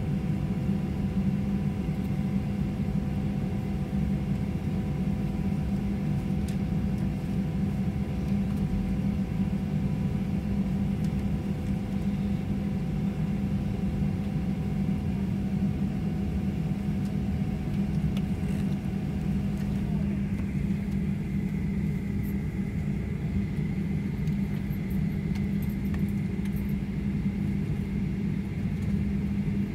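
Boeing 737-900 cabin noise while taxiing: the CFM56 engines at idle give a steady low hum and rumble. A few steady whining tones fade out about two-thirds of the way through, and a higher whine comes in.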